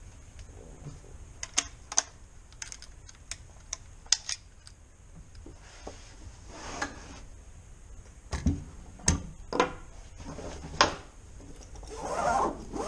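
Irregular sharp clicks, knocks and a few short sliding scrapes from hands working the Zastava CZ 99 .22 LR bolt-action rifle.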